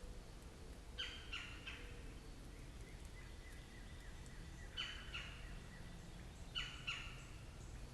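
Birds calling in a forest: a bird repeats short groups of two or three sharp, quickly falling notes every couple of seconds. A thin steady high note is held in the middle stretch.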